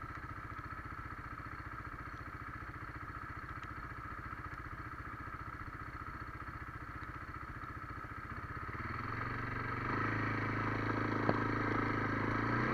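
Kymco MXU 300 ATV engine idling with a steady fast pulse. About nine seconds in it gets louder, and near the end it rises in pitch as it revs up. A single sharp click comes shortly before the rise.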